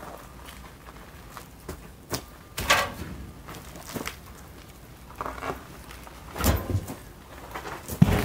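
A large sawn log round being rocked and walked on its edge across gravel: scraping bark and wood, crunching steps and several knocks, with heavy thuds as the round lands. The loudest thud comes near the end as the round is tipped down.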